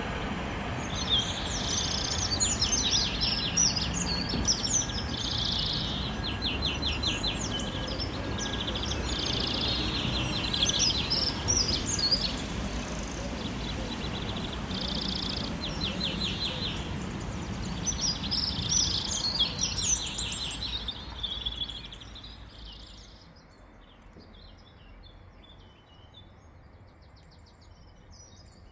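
Small songbirds chirping and singing rapid trills, over a steady low rumble that fades away about 22 seconds in.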